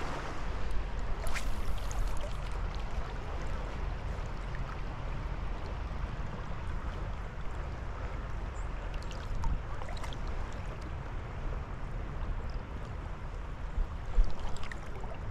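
Creek water running steadily, a continuous rushing with a low rumble underneath and a few faint clicks.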